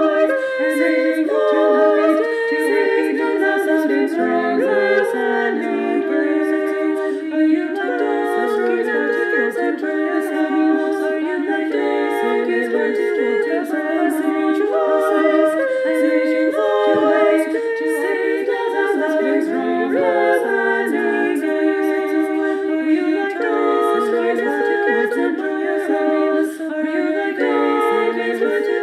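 A cappella singing: several unaccompanied voices singing a song in harmony, continuously, with no instruments.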